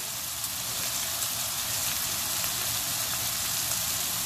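Onion, tomato and ginger-garlic masala sizzling steadily in hot oil in a metal kadai, the spices just added on top.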